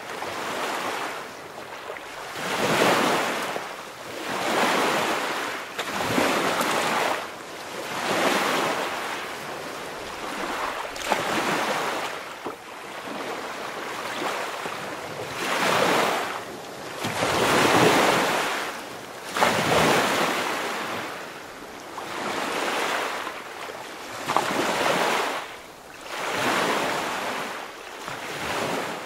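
Rushing, surf-like noise that swells and fades about every two seconds, with no voices or engine tones standing out.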